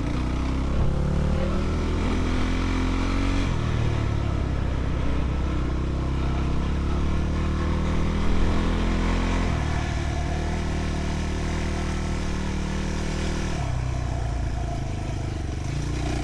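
Enduro motorcycle engine running under throttle while riding, its pitch stepping up and down several times.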